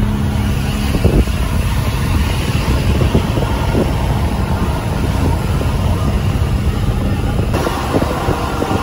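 Toyota Avanza car driving up a road, heard from inside the cabin: steady engine hum with road and wind noise, and a few light knocks from bumps about a second in and again a little later.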